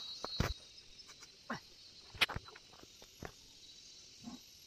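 A few short, sharp clicks and knocks of hand work on freshly chainsawn wooden planks, the loudest a little past two seconds in, over a faint high insect chirring that fades out within the first second.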